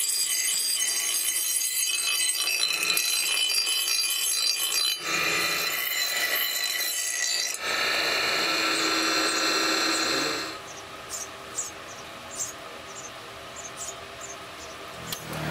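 Electric bench grinder's abrasive wheel grinding the edge of a steel cleaver blade: a steady, high-pitched grinding with ringing tones. It changes character twice, then stops about ten seconds in, leaving a quiet stretch with a few faint taps.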